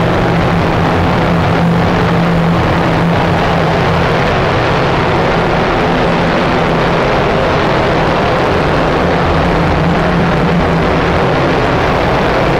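Paint booth ventilation fans running: a steady, loud rush of moving air over a constant low hum, unchanging throughout.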